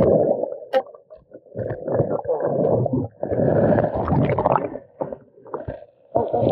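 Water sloshing and gurgling against an underwater camera, heard muffled through its housing, in several surges with short lulls between them; the camera briefly breaks the surface about four seconds in.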